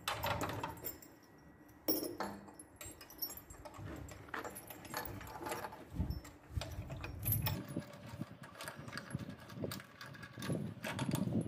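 Steel hoist chain clinking and rattling against metal as it is wrapped around and hooked to a bare engine block, with irregular metal-on-metal knocks.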